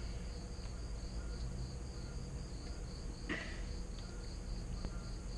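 Crickets chirping in a steady, even rhythm of about four chirps a second, over a faint low rumble.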